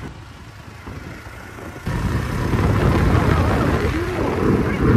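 A motor scooter riding along, with wind buffeting the microphone. Quieter at first, then suddenly much louder about two seconds in.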